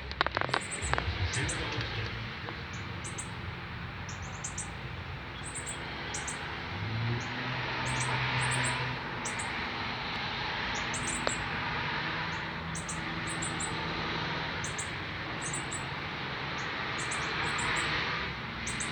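Northern cardinals giving short, high chip calls again and again, singly and in quick twos and threes, over a steady hiss. A few sharp clicks sound in the first second.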